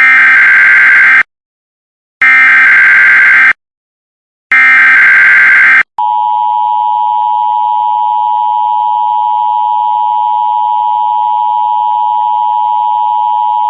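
Emergency Alert System tones: three bursts of SAME header data, each a harsh digital warble a little over a second long, with about a second of silence between them. About six seconds in, the steady two-tone EAS attention signal (853 and 960 Hz together) starts and holds unbroken.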